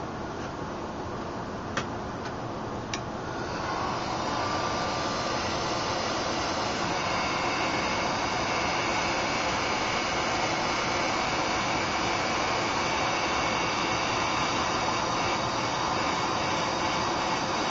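Heat gun blowing steadily while shrinking heat-shrink tubing over an ESC wire. There are two light clicks about two and three seconds in, and the blowing gets louder and brighter about four seconds in.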